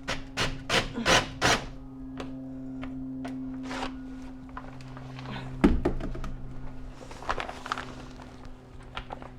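A quick run of about five sharp knocks in the first second and a half, then a single heavy thunk a little past halfway, over a steady low hum.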